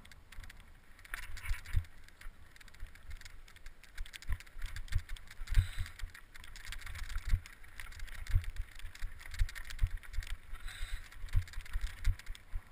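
Bicycle rattling and clattering as it rolls over a rough, stony mountain path, with irregular low thumps from the bumps and wind buffeting the microphone.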